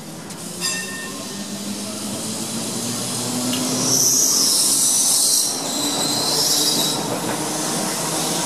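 Double-deck electric tram rolling past on street track, its running rumble building as it nears. From about four seconds in, the wheels squeal loudly against the rails for a second or two, more weakly until about seven seconds.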